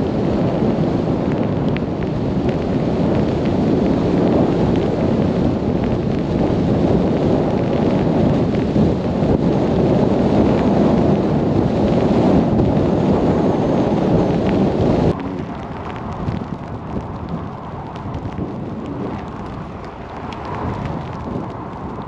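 Steady low rumble of blizzard wind and a vehicle's road noise while driving on a snow-packed highway. It drops suddenly to a lighter hiss about fifteen seconds in.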